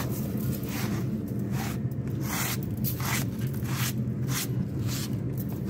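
A cloth rag wiped back and forth over a flat steel plate, a run of quick swishing strokes about two a second, clearing cutting fluid and metal chips from freshly drilled holes. A steady low hum runs underneath.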